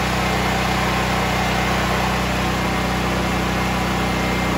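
Generac RS8000E generator's single-cylinder engine running steadily on propane through a newly fitted conversion kit, with an even hum.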